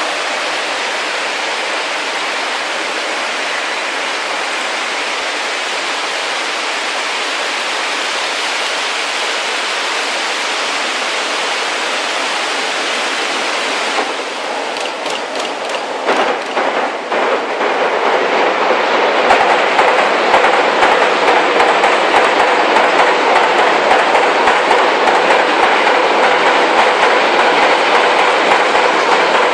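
Steady rush of water spilling over a stepped river weir, then a long freight train of loaded hopper wagons rolling over a steel girder bridge: from about halfway the wagons' rattle and a rapid clickety-clack of wheels over rail joints come in and grow louder, running on at a steady level.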